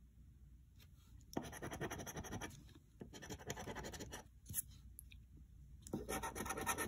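Coin scraping the coating off a scratch-off lottery ticket. After a moment of quiet there are three stretches of quick scratching, with a single click between the second and third.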